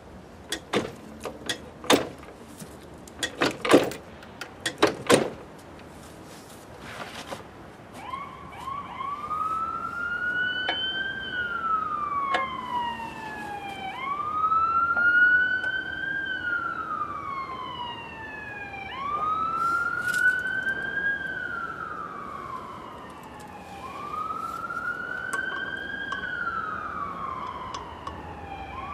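A run of sharp clicks and knocks in the first few seconds. Then a siren starts wailing: its pitch climbs, then slides down, about once every five seconds, over and over.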